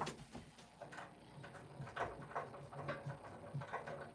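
Faint, scattered ticks and light taps of someone moving about a small room and handling things.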